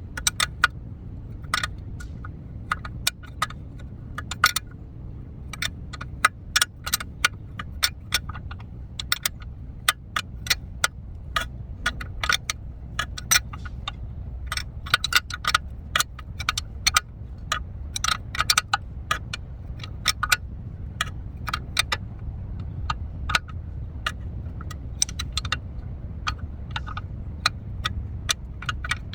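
Hand tools and steel suspension hardware clinking and tapping in quick, irregular sharp clicks during a ball joint installation, over a steady low hum.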